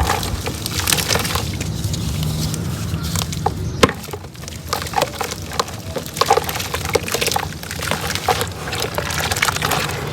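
Soft, slightly damp reused cement crumbling: a dense run of small crackles and gritty snaps, with a sharper crack about four seconds in.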